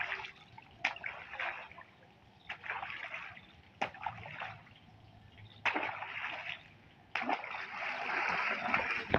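Fish being thrown one at a time from a plastic crate into a pond, each landing with a splash. Near the end the crate is dipped and tipped into the water, giving a longer splashing and sloshing.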